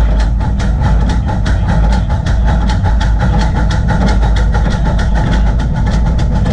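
24-inch-gauge coal-fired Crown 4-4-0 steam locomotive running along the track, with a fast even beat of about six a second over a steady low rumble.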